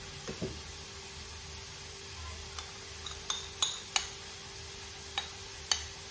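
A metal spoon clinks against white ceramic dishes as a bowl of tahini sauce is tipped out and scraped into a small dish. There are about six sharp clinks from about two and a half seconds in, over a faint steady hum.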